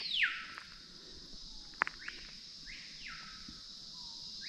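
Screaming piha whistles: one loud call that sweeps high and then slides down in pitch at the start, then fainter calls of the same shape, in pairs, about two seconds in and again at the end. A steady high insect hum runs underneath, with one sharp click just before the second pair of calls.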